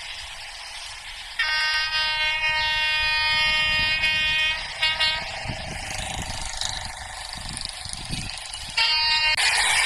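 Train horn sounding in the distance: one long steady blast of about three seconds, then a brief toot and another short blast near the end.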